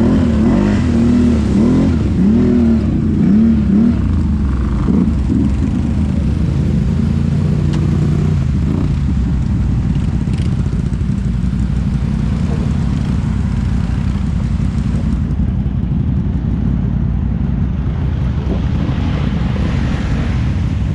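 Off-road vehicle engine revved up and down several times in quick succession for the first few seconds, then running steadily under load.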